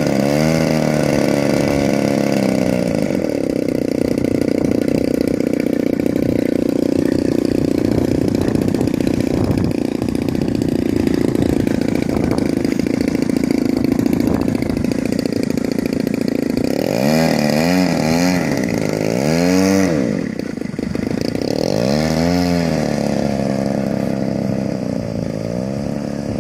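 DLE 35 RA single-cylinder two-stroke petrol engine of a large radio-control model airplane running loudly. It idles steadily, and in the second half the throttle is opened and closed several times, so the revs rise and fall.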